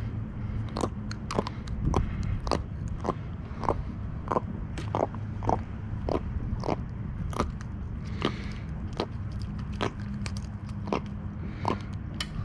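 A run of short, sharp clicks, about two a second, with a low steady rumble underneath, while a small jack crevalle is being unhooked by hand.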